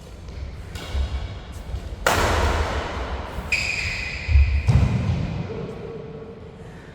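Background music with heavy percussive hits: a loud swelling rush about two seconds in, a held high tone, and deep thumps a little past the middle, fading out near the end.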